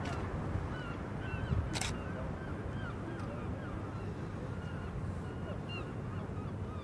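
Small birds chirping repeatedly over a steady low rumble, with a single sharp click about two seconds in.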